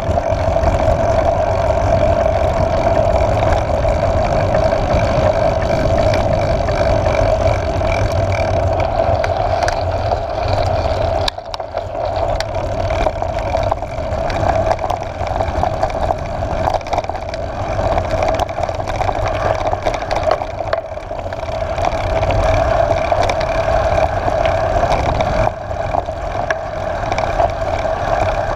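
Mountain bike rolling fast down a gravel dirt track: a steady rush of wind and tyre noise with constant small rattles from the bike over the rough surface, easing briefly about eleven seconds in.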